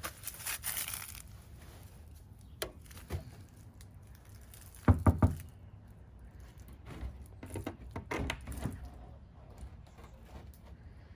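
Scattered knocks and clicks, with three quick, hard knocks about five seconds in, the loudest of them.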